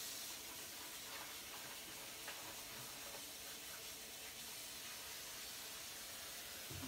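Faint, steady hiss with a few soft rubbing and handling sounds as a towel wipes out the detergent drawer recess of a washing machine.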